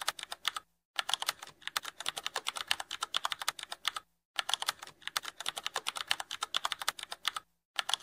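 Computer keyboard typing sound effect: rapid key clicks, about ten a second, with three short pauses, about a second in, about four seconds in and near the end.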